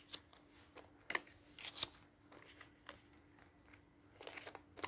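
Faint, scattered clicks and rustles of hands handling sticker sheets and their packaging, a little busier near the end.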